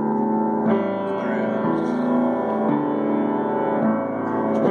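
Keyboard played in held chords, the notes sustained and the harmony changing about once a second.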